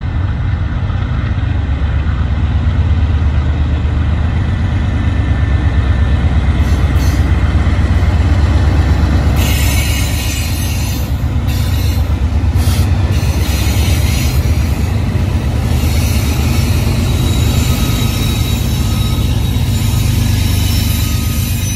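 BNSF diesel-electric freight locomotives pass close by working hard, their engines a deep pulsing drone, and the sound brightens into a loud rushing of steel wheels on rail as they go by. The double-stack container cars follow with a steady wheel rumble and a few thin wheel squeals near the end.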